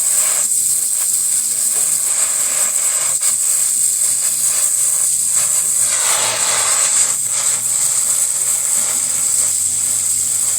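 Gas welding torch flame hissing steadily, swelling briefly about six seconds in.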